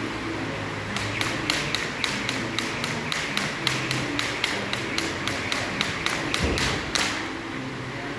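Jump rope striking the floor in a fast, even rhythm of about four ticks a second, which starts about a second in and stops about a second before the end.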